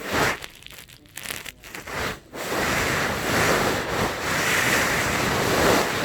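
Siamese cat snoring in short, noisy breaths. From about two seconds in comes a loud, steady rushing hiss that lasts about four seconds.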